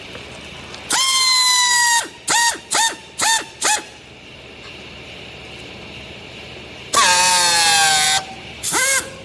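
High horn-like honking in bursts: one honk of about a second, three quick short ones, a longer honk that slides down in pitch, then one more short one.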